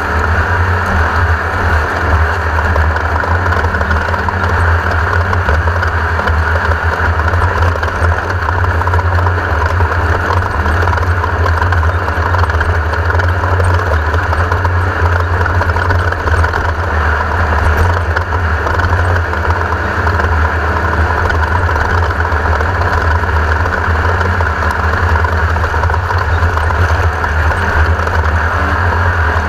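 A 1982 Race-co Class 1600 off-road race car's air-cooled 1600 cc Volkswagen flat-four engine running loud and steady, with no change in pitch.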